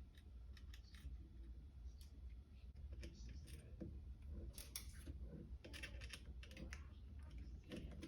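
Faint, irregular small clicks and taps of small metal parts being handled: a washer and nut being fitted onto a replacement potentiometer's threaded shaft. A steady low hum runs underneath.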